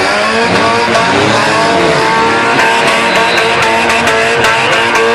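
Several demolition derby cars' engines revving hard at once, their pitches rising and falling, with scattered sharp knocks.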